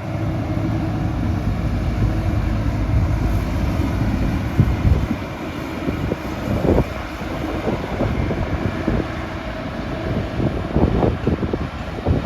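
Caterpillar 312D L excavator's diesel engine running steadily, stepping up in loudness at the start, with occasional clanks and knocks from the machine working.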